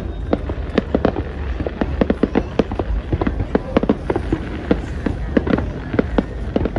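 Fireworks going off in a rapid, irregular barrage of many overlapping bangs and pops, several a second, over a steady low rumble.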